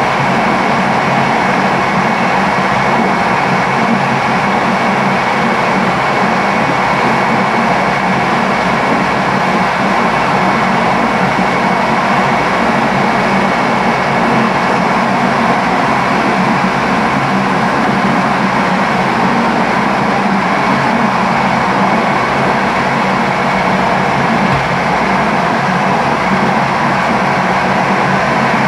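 Electric train running steadily at speed on the rails, heard from on board: a constant rolling rumble and rush with a low steady hum underneath.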